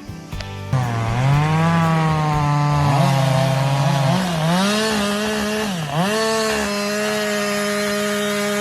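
Chainsaw's two-stroke engine revving up about a second in and running at high speed, its pitch dipping briefly three times before holding steady.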